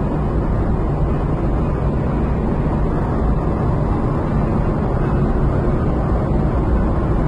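Steady road and engine noise of a car driving on a paved road, heard from inside the car: an even low rumble of tyres and engine.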